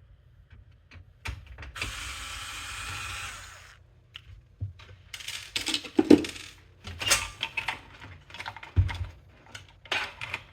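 An electric screwdriver runs for about two seconds, backing out screws from a desktop computer case. Then comes a clatter of clicks and knocks as screws and metal parts are handled while the computer is taken apart.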